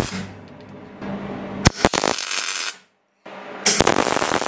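MIG welder tack-welding an end onto a hydraulic cylinder, running 0.6 mm wire: short bursts of arc crackle, one starting about a second in and lasting nearly two seconds, another near the end.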